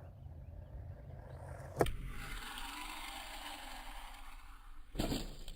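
Small RC truck running on loose ground, with a sharp knock about two seconds in and another near the end, typical of the truck landing or bumping over the ground.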